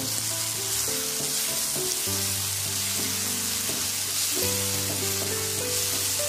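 Chopped onions, tomatoes and ginger-garlic paste sizzling in ghee in a non-stick pan while a wooden spatula stirs them, a steady hiss. Background music with a simple melody plays underneath.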